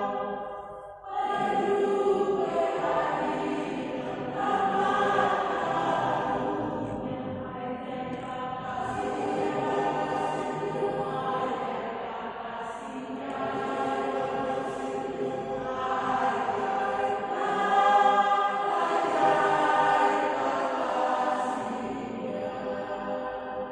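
Choir singing sustained, held phrases, with a short break about a second in.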